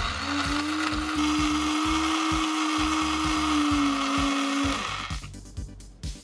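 Toy kitchen appliance's electronic blender sound effect through a tiny speaker: a steady whirring with a hum, stopping about five seconds in. A few light clicks follow near the end.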